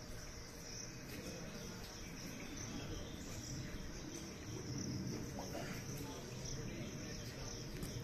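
Steady high-pitched chorus of insects in the trees, holding one even pitch throughout.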